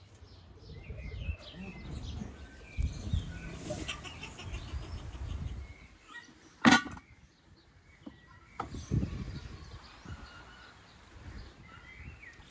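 Outdoor ambience of small birds chirping, with a low rumble through the first half. A little past halfway comes one sharp, loud knock on wood, followed by two softer knocks.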